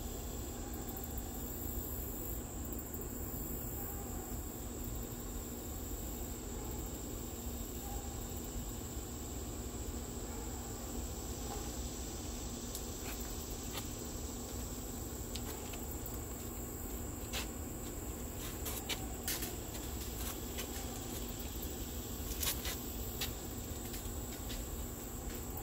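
Steady high-pitched insect chorus over a low rumble, with a few sharp clicks in the second half.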